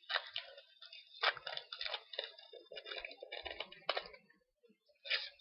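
A foil trading-card pack being handled and opened, with the wrapper crinkling and the cards rustling in irregular bursts for about four seconds, then a few short clicks near the end.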